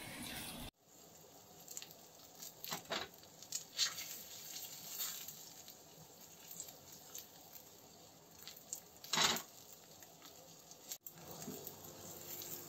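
T-bone steak searing in a stainless steel frying pan: a faint, steady sizzle with scattered pops and crackles of spitting fat, and a few louder clicks, the loudest about nine seconds in.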